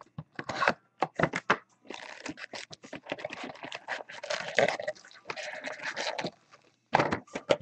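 Foil trading-card packs rustling and crinkling as they are handled and pulled out of a cardboard hobby box, with scattered clicks and taps.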